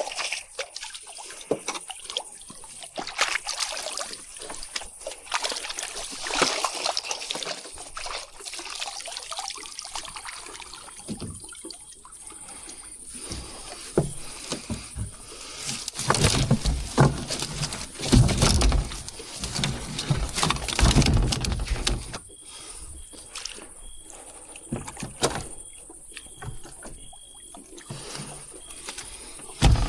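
Water sloshing and trickling with irregular knocks and rustles as fishing gear and fish are handled at the water's edge, heaviest in the middle stretch.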